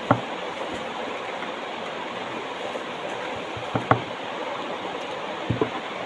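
Steady rushing background hiss, with a few short soft knocks: one at the start, two close together nearly four seconds in, and two more about five and a half seconds in, like hands bumping the phone while makeup is dabbed on.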